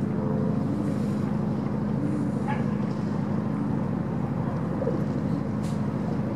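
Steady low drone of ship diesel engines under way.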